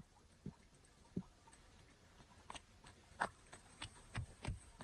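Scattered light knocks and clicks from a pot and plastic bucket handled on bamboo slats, then a few soft footsteps in sandals on a dirt path near the end.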